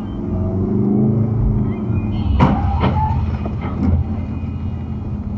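Car engine and road noise heard inside the cabin, the engine tone rising and falling, then two sharp bangs a little over two seconds in, about half a second apart, with a smaller knock about a second later: a vehicle rear-ending a line of cars just ahead.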